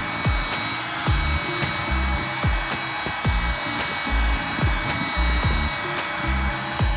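Background music with a steady beat of deep drum hits, over the steady whine and hiss of an electric power tool running, as used to sharpen a step drill bit.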